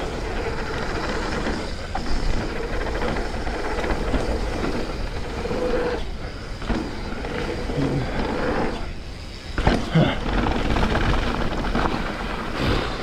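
Mountain bike riding down a dirt trail: a steady rush and rumble of tyres and moving air, with the bike rattling. There are a few sharp knocks in the last few seconds as it hits bumps.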